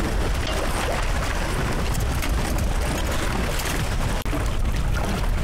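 Strong, gusty wind buffeting the microphone, over choppy lake water splashing against a moored sailboat's hull. The sound drops out for an instant about four seconds in.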